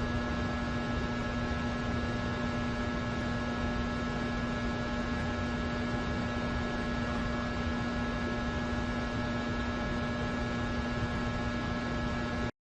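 A steady electrical-sounding hum over hiss, with one low tone standing out and a few fainter higher tones, unchanging throughout. It cuts off suddenly near the end.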